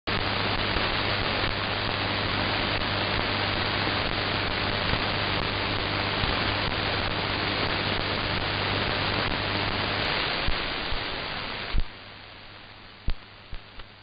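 Shortwave receiver static on the 7330 kHz channel: a steady hiss with a low hum underneath and no sound above the receiver's audio bandwidth. About twelve seconds in the hiss drops sharply to a much quieter background, broken by a few sharp crackles.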